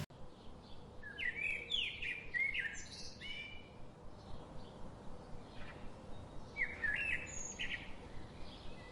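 A songbird singing in two bursts of short, quickly repeated rising notes, the first about a second in and the second near the end.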